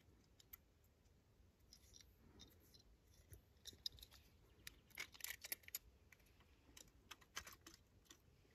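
Near silence with faint, scattered clicks and light scrapes of small hard objects, busiest in the middle.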